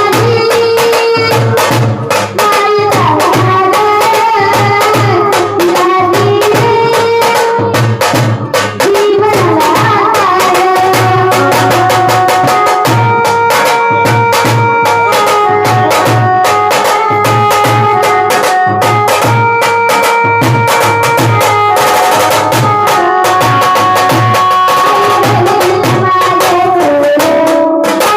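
Instrumental music of an Indian song: melody instruments playing held, shifting notes over a steady, regular drum beat.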